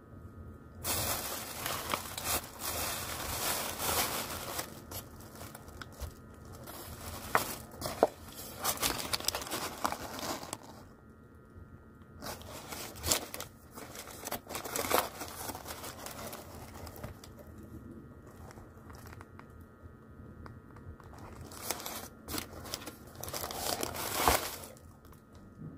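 Paper lining a fried-chicken basket crinkling and rustling as the chicken is handled, with sharp crackles. It comes in three stretches: a long one near the start, another in the middle and a short one near the end.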